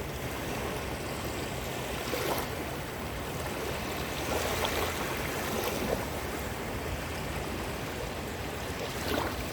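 Caspian Sea surf: waves washing and breaking on the shore in a steady wash of noise, swelling a little about two seconds in, around the middle, and near the end.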